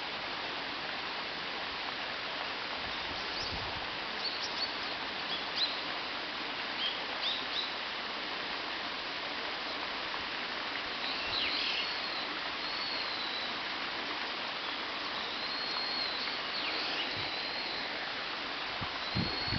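Japanese white-eyes calling: scattered short, thin high chirps, then a few longer arching high notes. A steady rush of river water runs underneath.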